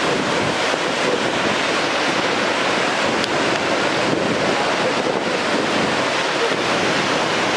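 Niagara Falls' Horseshoe Falls pouring over the brink: a steady, unbroken rush of falling water.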